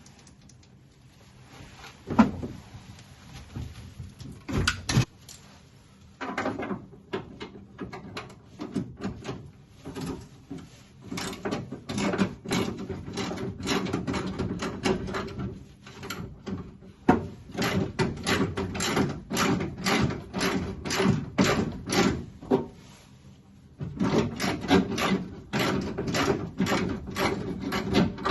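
Hand tools working on the steel door's window hardware: two sharp knocks, then long runs of rapid metallic clicking with a couple of short pauses.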